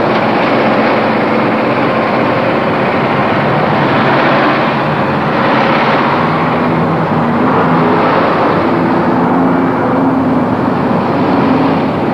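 Electric trolleybus running, heard as a steady, loud rush of vehicle noise with a faint low hum.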